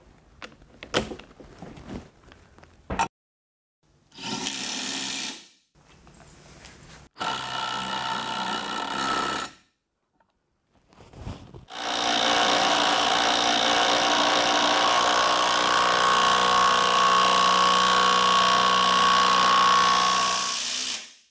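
Bosch GDS 18 V-LI cordless impact wrench driving fasteners. First a few handling clicks and knocks, then two short runs, then one long steady run of about nine seconds as it drives a lag screw into a timber beam.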